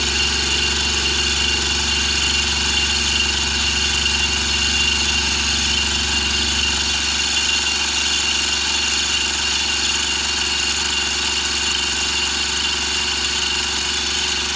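Benchtop milling machine running with a fly cutter taking a light facing cut across metal stock: a steady machine hum with several constant tones.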